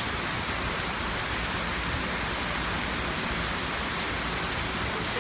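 Steady rain pouring down in a thunderstorm, an even hiss with no breaks.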